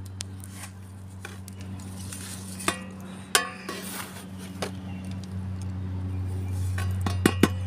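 Garden trowel scooping compost from a metal plate and scattering it into a plant pot: scraping with a few sharp metallic clinks, two in the middle and a quick cluster near the end, over a steady low hum.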